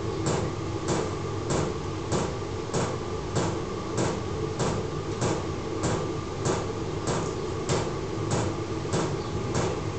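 12 V diesel air heater running: its fuel pump ticks evenly about one and a half times a second over the steady hum of its blower and burner.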